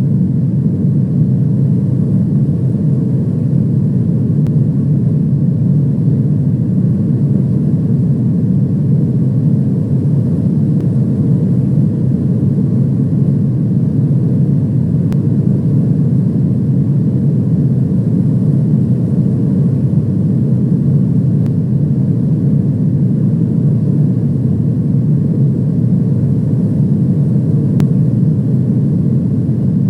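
Steady engine and airflow noise of an airliner heard from inside the cabin, a low, even roar that does not change.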